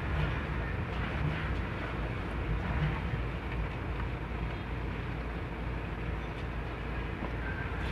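Steady low background rumble, like distant traffic, with a microfiber cloth rubbing over a car's plastic door trim.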